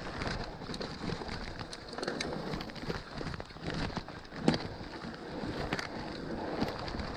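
Scott E-Genius 730 e-mountain bike with plus-size tyres rolling over a dirt and gravel trail: steady tyre noise with many small clicks and rattles from the bike, and one sharper knock about four and a half seconds in.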